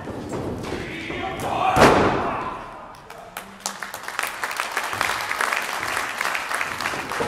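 A wrestler crashing onto the boards of a wrestling ring about two seconds in, one loud bang with voices shouting around it. For the last few seconds a small audience claps.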